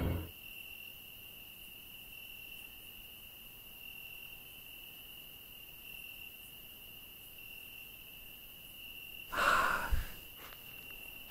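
Crickets chirring in one steady, unbroken high trill. About nine seconds in, a brief louder rustle ends in a dull thump.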